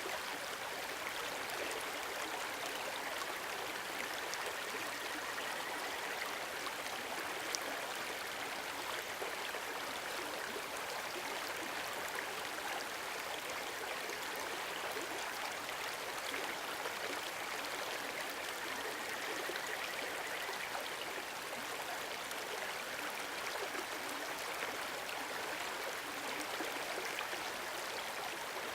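A mountain stream rushing steadily over rocks.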